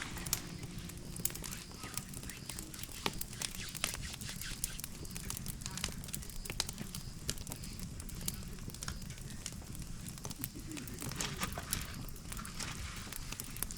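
Campfire crackling, with sharp irregular pops and snaps over a low steady rumble.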